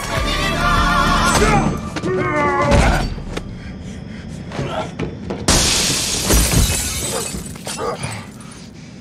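A song with a singing voice plays for the first three seconds or so. About five and a half seconds in there is a sudden loud crash with shattering, then several heavy thuds of blows in a scuffle.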